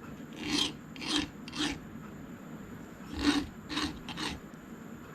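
Hand file rasping along the sharp edge of a new milling vise in short strokes, two runs of three strokes, deburring the edge.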